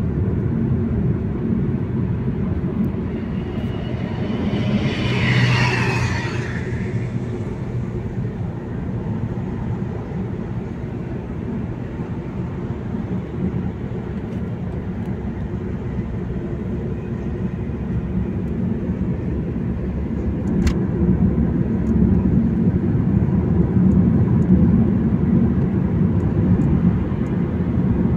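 Car cabin road noise while driving on a highway: a steady low rumble of tyres and engine. About five seconds in, something louder briefly passes with a gliding whine, a sharp click comes about twenty seconds in, and the rumble grows louder near the end.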